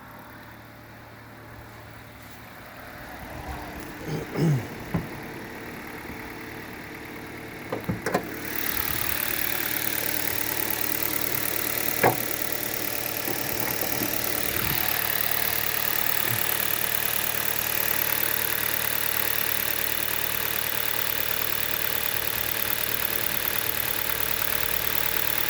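Hyundai G4FC four-cylinder engine running cold at a raised warm-up idle, steady and without an audible knock. A few thumps come in the first eight seconds, the engine becomes much louder from about eight seconds in, and there is one sharp click near the middle.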